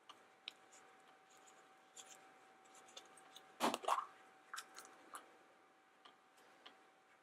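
Faint clicking and rustling of plastic surprise eggs and confetti being handled by hand, with a louder burst of crackling about three and a half seconds in.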